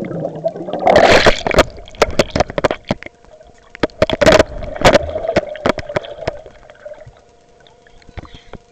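Water splashing and gurgling against a small action camera as it is plunged in and out of lake water, with sharp knocks and bumps on the camera. There are two loud surges of churning water, about a second in and again around four to five seconds, and it is quieter near the end.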